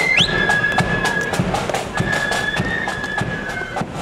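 Marching band playing: high held melody notes over a steady drum beat, growing slightly fainter.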